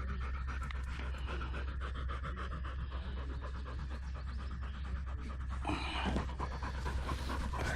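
Dog panting rapidly and steadily, heard close up from the GoPro on its own harness.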